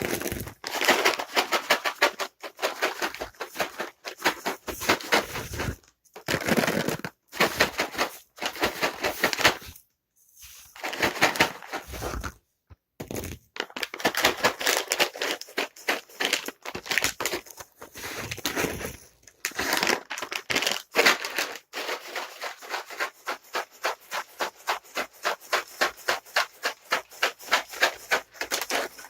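Dry cat treats rattling inside a container being shaken in bouts with short pauses, then in a steady, even rhythm of about three to four shakes a second over the last several seconds. This is the treat-shaker sound that calls a cat to food.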